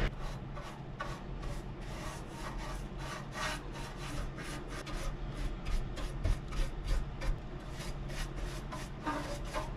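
A paintbrush scrubbing engine enamel onto a metal engine valley pan. The bristles rub over the metal in quick repeated strokes, about two to three a second.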